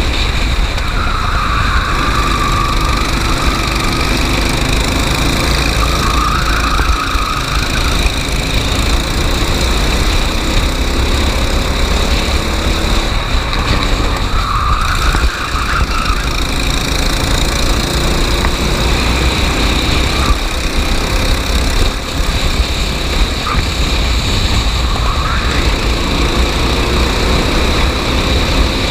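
Racing kart engine running hard during a race heat, its pitch rising and falling several times as it accelerates and lifts off, over a constant low rumble.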